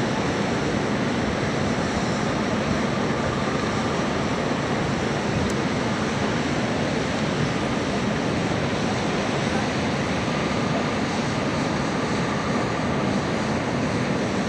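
Fire engine's diesel engine running steadily as the truck reverses slowly, heard as a constant, even rumble and rush.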